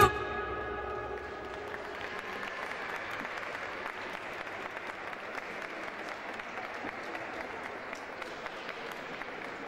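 Audience applauding steadily, fading slightly near the end.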